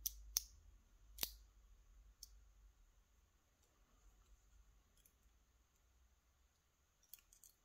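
Faint light clicks of a brass lock cylinder and its small parts being handled while it is taken apart: three in the first second and a half, a few more near the end, near silence between.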